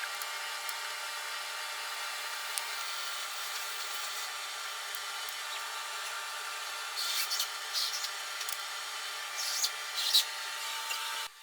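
A steady whirring drone with several high steady tones, cutting off abruptly near the end, with short scrapes and clinks of hand tools on the engine about seven and ten seconds in.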